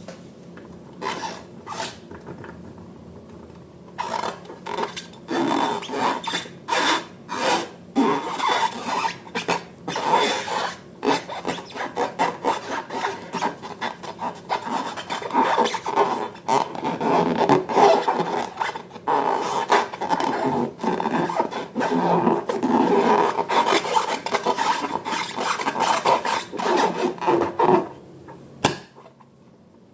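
Slime being worked and mixed: quick, irregular rubbing and scraping strokes, a few at first, then dense from about four seconds in until shortly before the end.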